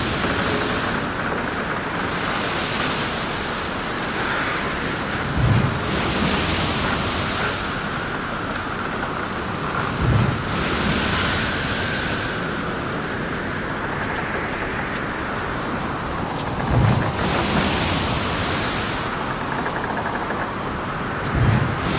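Ship in heavy seas: a steady rush of wind and water with swelling hiss of spray, and four heavy low thuds of waves striking, about every five seconds.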